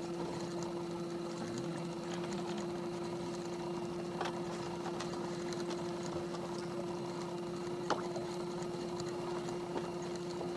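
Steady, even hum of a small motor on a fishing boat, holding one pitch throughout, with a few faint light clicks.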